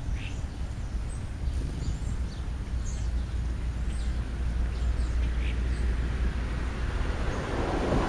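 Steady low outdoor rumble with a few short, high bird chirps scattered through it; a louder rush of noise builds near the end.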